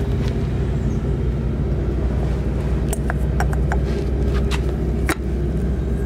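A nearby engine runs steadily with a low, even drone. A few sharp metallic clicks and taps come about halfway through and near the end, as the saildrive's shaft, gear and housing are handled.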